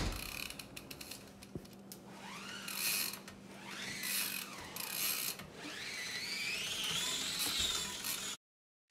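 Ratcheting clicks from a 14-inch Fit misFit BMX bike's rear hub freewheel as the wheel and cranks are turned by hand, mixed with some rising and falling whining tones. The sound cuts off suddenly near the end.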